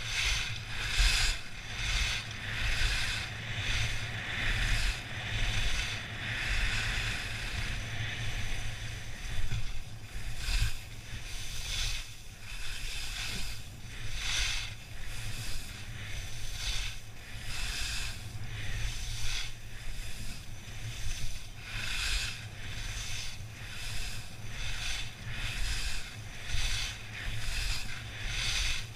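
Skis carving on packed piste snow in quick successive turns: a scraping hiss that surges with each turn, over a steady low rumble of wind on the microphone.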